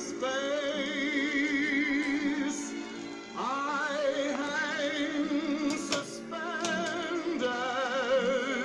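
Music with a singer's voice, held notes with a wide vibrato, playing through the speaker of a 1961 Loewe Opta Kantate valve radiogram. A few sharp clicks come about six seconds in.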